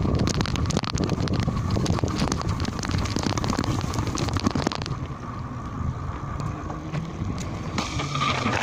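Bicycle rattling and jolting as it coasts downhill over a bumpy grass track, with wind on the microphone. About five seconds in it rolls onto asphalt, and the rattle gives way to a smoother rolling hiss.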